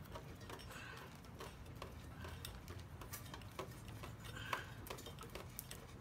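Quiet, irregular small clicks and ticks of a 1 lb propane cylinder being screwed by hand into a portable propane heater's regulator.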